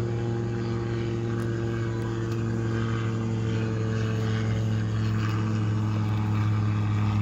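An engine running with a steady low drone, its pitch unchanging and its level slowly growing.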